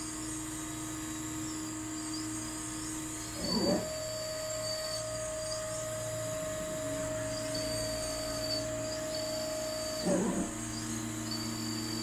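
Steering and wheel-lean servos of a 1:14 scale RC Cat 14M3 motor grader: two short whirs, about three and a half and ten seconds in, as the front wheels move. Between them a steady electric hum that steps up in pitch after the first whir and drops back after the second.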